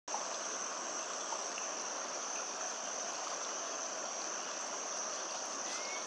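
River rapids rushing steadily, under a continuous high-pitched insect drone.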